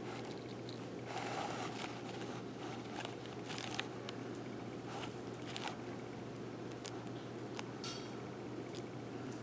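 Baby blue-tongued skink biting and crunching dubia cockroaches, a scattering of small crisp clicks and crunches.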